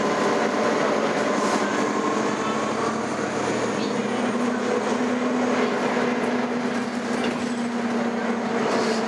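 Nova Bus LFS city bus running under way, heard from inside: a steady drivetrain whine over road noise, with its pitch changing about four seconds in.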